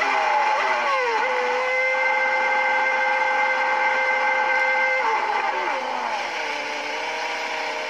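Formula 1 car engine running with a high, steady pitch. The revs drop in the first second, then hold level for about four seconds, drop again about five seconds in, and settle at a lower steady note.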